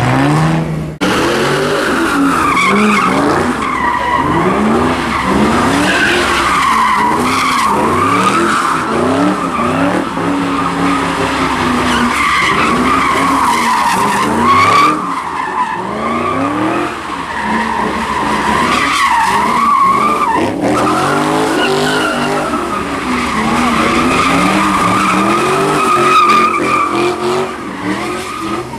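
Ford Mustang doing donuts: the engine revs up and down in repeated waves while the rear tyres squeal without a break.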